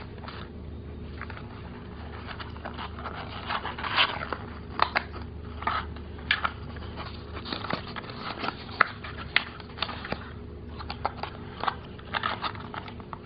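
Small cardboard box being opened by hand: irregular crackles, clicks and scrapes of the card flaps, starting about three seconds in, over a faint low hum.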